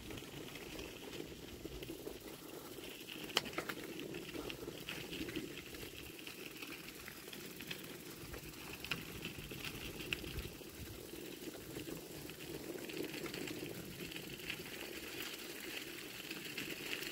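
Mountain bike rolling along a wet, muddy trail: a steady wet tyre hiss and splash with many small rattles and clicks.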